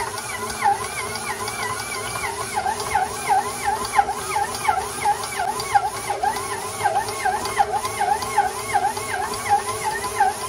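KitchenAid stand mixer kneading bread dough with its dough hook. The motor whines, and its pitch dips sharply and recovers about three times a second as the hook works the dough around the bowl.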